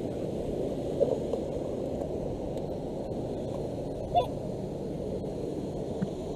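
Steady low rush of water at the dam, with two short honking calls, one about a second in and one just past four seconds.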